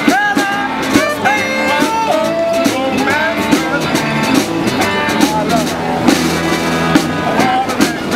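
Street band playing upbeat funky music, with a drum beat under a lead melody whose notes slide up and down in pitch.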